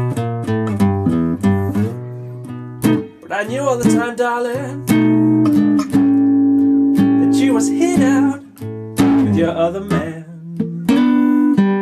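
Nylon-string classical guitar playing a slow blues, plucked single notes and chords, with some notes held and left ringing.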